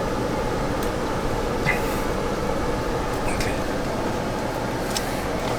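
Steady hum inside a Jeep Gladiator's cabin with the vehicle running, blower fan and engine, with a few faint clicks about every second and a half.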